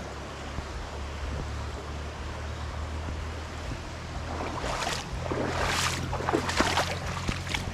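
Wind and moving water over a low steady hum, with a run of louder rustling splashes in the second half.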